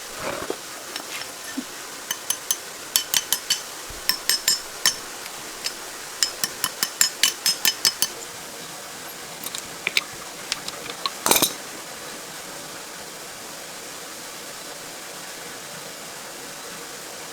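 Light metallic clinks and taps of hand tools and small parts against metal during tractor repair work, coming in quick runs of several a second. One louder clatter comes about eleven seconds in, then only steady background noise.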